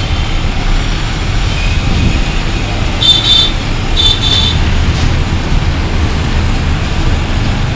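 Steady low rumble of street traffic. About three and four seconds in come two short, high-pitched beeps.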